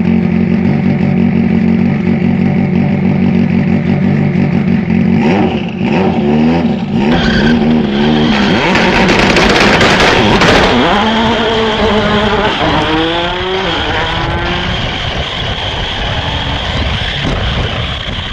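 RC car's motor running at a steady pitch, then revving up and down in repeated rising and falling sweeps, with a loud rushing noise around the middle.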